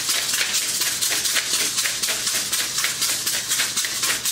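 Hand pepper mill being twisted, grinding black peppercorns: a continuous gritty crunching with rapid clicks, several a second.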